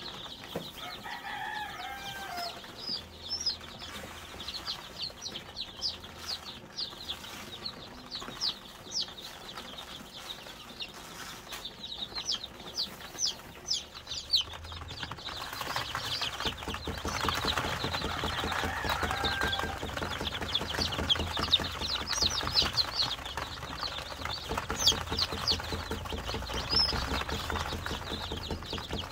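A brood of newly hatched upgraded native chicken chicks peeping all at once: a dense run of rapid, high-pitched falling peeps that grows louder about halfway through.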